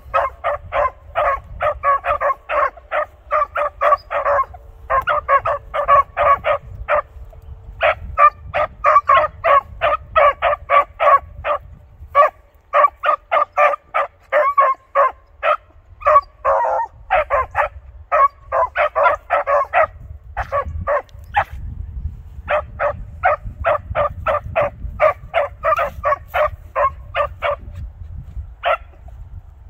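Hunting beagles giving tongue on a track, barking in quick runs of short chop barks at about four a second, broken by brief pauses.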